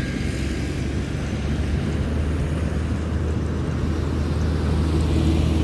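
A steady low engine drone with several even tones, strengthening about two seconds in and growing slightly louder toward the end.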